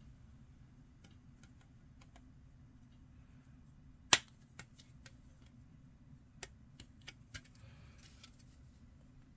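Light plastic clicks and taps from a plastic miniature-kit sprue being handled, with one sharp click about four seconds in and a few smaller clicks after it.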